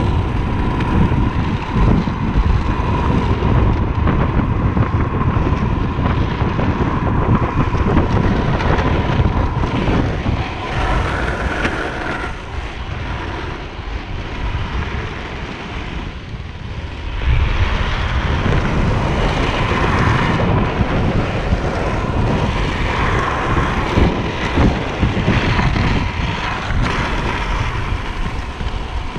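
Wind rushing over the microphone with the rumble of board wheels rolling fast on asphalt, easing off for a few seconds about halfway through.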